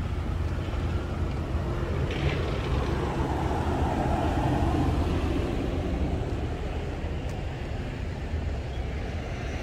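A road vehicle passing, its noise swelling to a peak about halfway through and then fading, over a steady low rumble.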